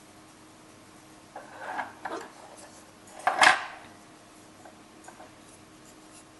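A hard black plastic knife sheath handled on a wooden tabletop: a couple of short scrapes and rattles, then a louder scrape about halfway through, and a few faint clicks near the end.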